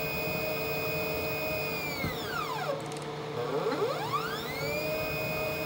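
NEMA 17 stepper motor whining as it drives a plunge router base up and down through 3D-printed double helical gears. The whine is steady at first, falls in pitch as the motor slows to a stop about two to three seconds in, then rises again as it speeds back up.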